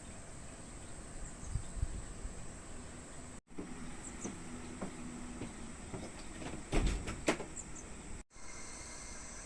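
Hand work on a car battery: a few scattered clicks and knocks, with two sharper knocks close together about seven seconds in, over a steady high-pitched hiss.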